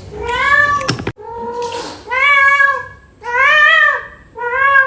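Domestic cat meowing insistently, about five loud drawn-out meows in a row, each rising then falling in pitch, the last one doubled: a cat begging for more food.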